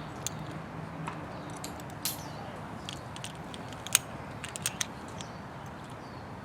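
Metal climbing hardware being handled and clipped: scattered sharp clicks and clinks of carabiners and the hitch-climber pulley, the loudest about four seconds in.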